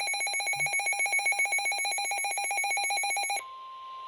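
Weather radio receiver sounding its rapidly pulsing electronic alert alarm. A little over three seconds in, the alarm cuts off and the broadcast's steady single-pitch warning alarm tone, the NOAA Weather Radio 1050 Hz tone, carries on over faint hiss.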